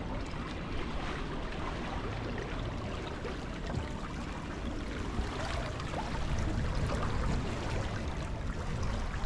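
Water swishing and trickling steadily along the hulls of a sailing catamaran moving slowly under sail in very light wind, with a low rumble underneath.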